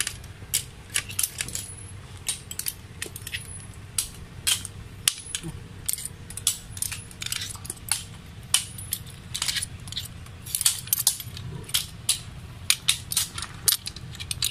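Mangrove clam (lukan) shells being pried open by hand, giving irregular hard clicks and clinks of shell on shell, several a second.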